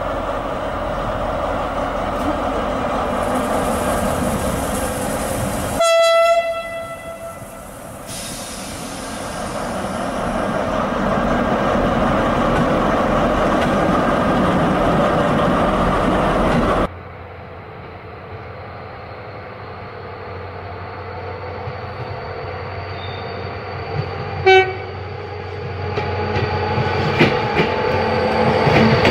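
Onboard sound of an HO-scale model SNCF BB 75000 diesel locomotive: the diesel engine running, with one horn blast lasting about a second, about six seconds in. About halfway the sound cuts to the quieter rumble of model tank wagons rolling along the track, with a short, lower horn toot and wheels clicking over rail joints near the end.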